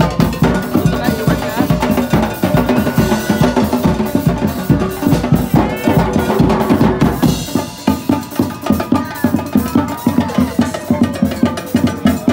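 A group of drums playing a fast, busy rhythm, accompanying a fire-dancing performance.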